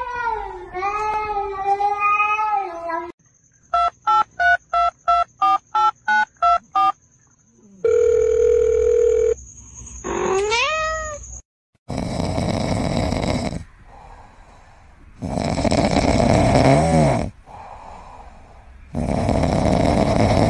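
A drawn-out animal call that bends up and down in pitch. Then a run of about nine short telephone-like beeps and a held dial-tone-like note, then a quick rising yowl. After that come three slow, loud snoring breaths from a sleeping kitten, with quieter breathing between them.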